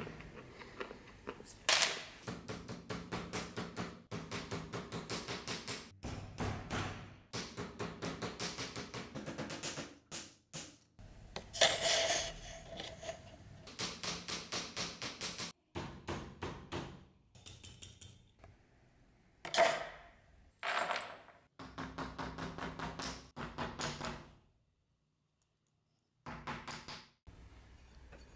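A hammer striking a small steel bench anvil in quick runs of light blows, about five a second, with a metallic ring on each blow. The runs are broken by short pauses.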